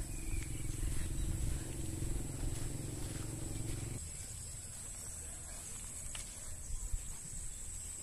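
Steady high-pitched insect drone, over a low rumble that stops abruptly about halfway through.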